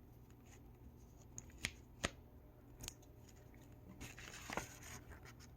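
Faint handling of a paper checklist leaflet: a few light clicks and a brief soft rustle of paper near the end.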